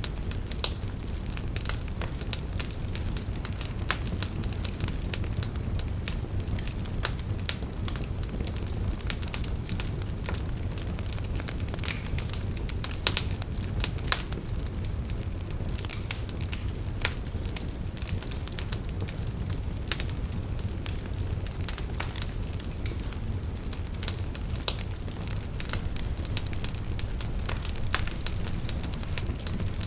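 Bonfire burning steadily, with a low rumble of flames and frequent sharp, irregular crackles and pops of burning wood.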